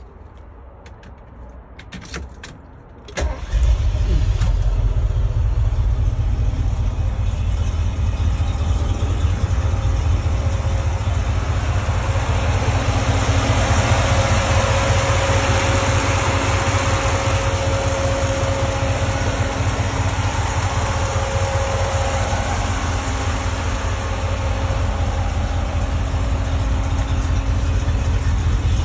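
The 1978 Ford Bronco's 400M V8, fitted with a four-barrel Edelbrock carburetor, cranks briefly and fires about three seconds in, then idles steadily. It is heard first from the cab and then at the open engine bay.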